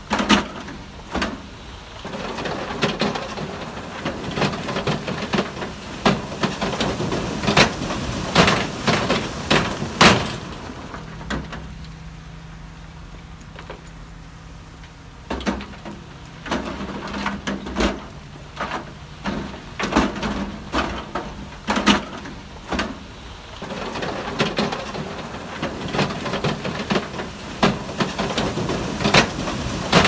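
Heavy diesel construction machine running with a steady low drone, over frequent sharp metallic clanks and knocks. The clanks stop for a few seconds near the middle, leaving only the engine drone, then resume.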